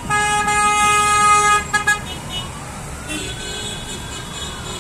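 Car horns honking in a convoy: one horn held for about two seconds, then two short toots, then fainter honks with a faint wail that slowly rises and falls.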